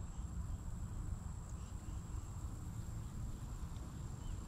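Outdoor pond-side ambience: a steady, thin, high-pitched insect drone over a low rumble on the microphone.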